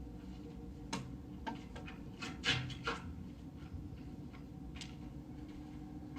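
Horror ambience: a steady low rumbling drone with scattered wooden knocks, clicks and creaks, the loudest a short cluster of scraping creaks about halfway through.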